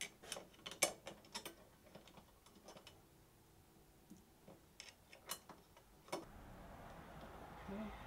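Light clicks and taps of small bolts and a metal bracket being handled and fitted by hand. Most come in the first second and a half, a few more are spaced out later, and a faint steady hiss sets in about six seconds in.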